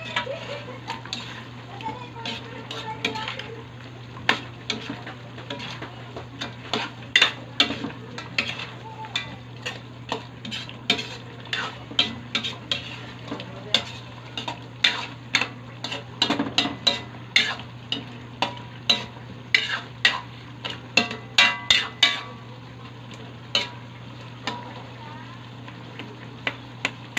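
A utensil stirring fish in thick, simmering escabeche sauce in a metal wok, clinking and scraping against the pan many times while the sauce bubbles and sizzles. The clinks come thick and fast, then thin out after about 22 seconds.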